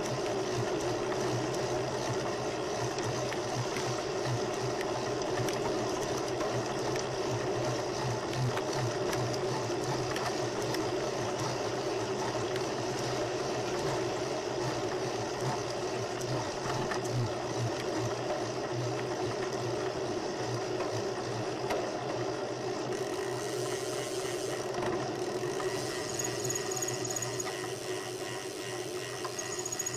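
Steady whirring rumble of a bicycle riding along a paved street, picked up through the bike-mounted camera, with traffic behind. A faint high thin tone joins in near the end.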